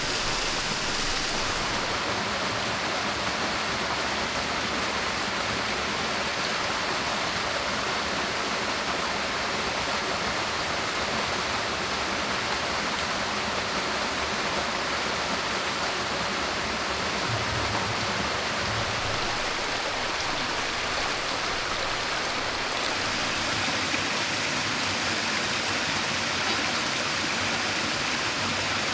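Small waterfall and shallow stream running over rocks: a steady, even rush of water.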